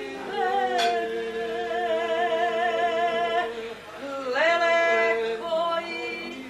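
Singing in long held notes with vibrato, broken by a short pause about four seconds in before a new note slides up and is held.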